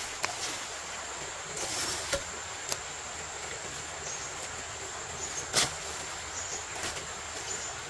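Steady high-pitched insect drone, with a few sharp knocks scattered through it, the loudest about five and a half seconds in.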